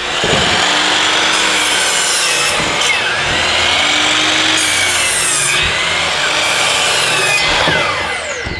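DeWalt compound miter saw cutting through a wooden board, the blade running steadily under load. Near the end the motor winds down with a falling whine.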